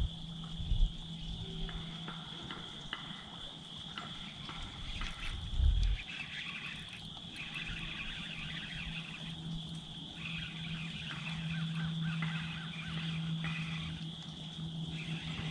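Steady high-pitched outdoor chorus of small animals, with patchy higher chirring coming and going over it and a low steady hum underneath. Two dull thumps, one about a second in and one about six seconds in.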